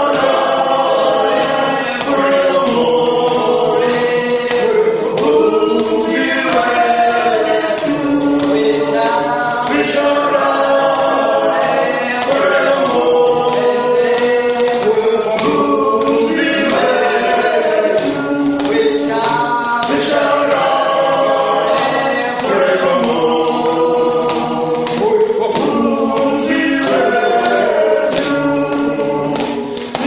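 A small group of young men singing together in harmony, several voices holding and changing chords without a break.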